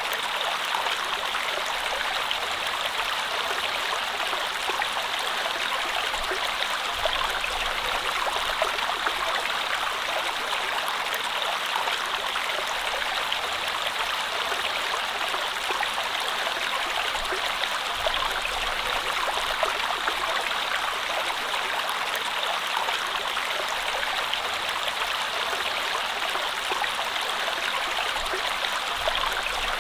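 Running stream water, a steady, even rush with no breaks.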